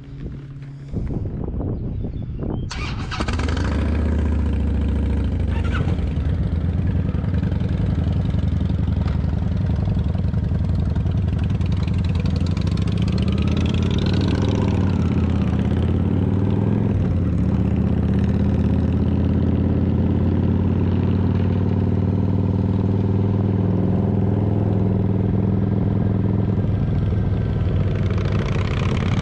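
Cruiser motorcycle engine starting up about a second in, then running steadily from about three seconds as the bike rides off at low speed.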